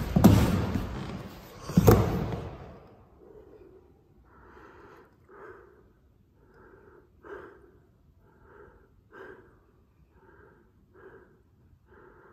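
Two heavy thuds on a wooden floor in the first two seconds, amid a loud burst that dies away. Then a person's slow, heavy breathing, an in-and-out pair about every two seconds.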